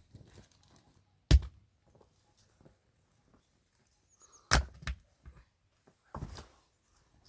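A few separate dull thumps: a loud one about a second in, two close together halfway through, and a shorter run of knocks near the end.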